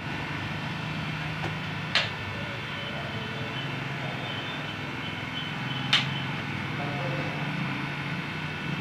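The hydraulic pump unit of a 4-ton double-cylinder scissor car lift running steadily with a low hum as it raises the lift. Two sharp clacks come about two seconds in and again about six seconds in.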